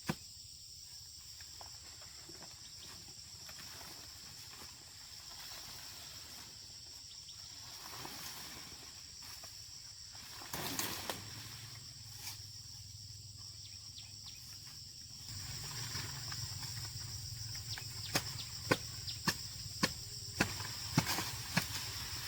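Insects chirring steadily in the background. A low hum joins about two-thirds of the way in, and near the end comes a run of sharp knocks, roughly two a second.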